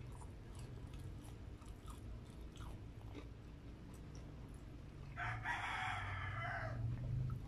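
Quiet chewing with small mouth clicks. About five seconds in, a rooster crows for nearly two seconds, the loudest sound.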